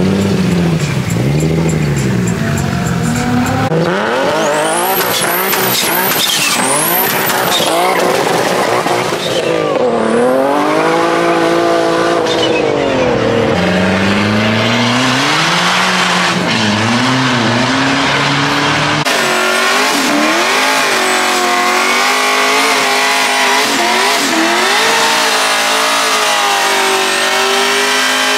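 Modified sports cars' engines revving hard, their pitch rising and falling, with tires squealing as they break traction, sharpest a few seconds in. In the last third an engine is held at steady high revs while a drift car's rear tires spin in a smoky burnout.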